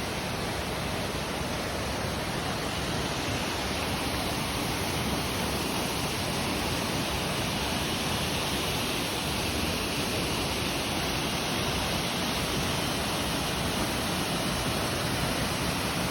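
Waterfall: a steady, even rush of water falling onto rocks.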